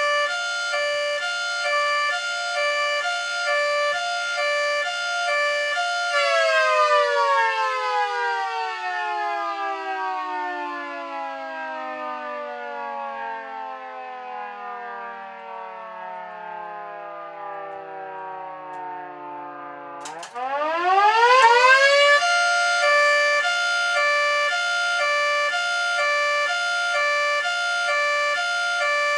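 Mini model Federal Signal 3T22 siren sounding a hi-lo signal: its chord flips back and forth between two pitches. About six seconds in, the rotor powers down and the chord slowly winds down in pitch. About twenty seconds in, it spins back up in a quick rising sweep and resumes the two-pitch alternation.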